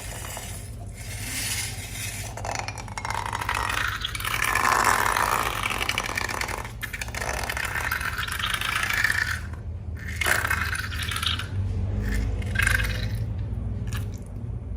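Slime and mix-ins being stirred and scraped around a bowl: scraping and rattling noises in stretches, broken by a few short pauses.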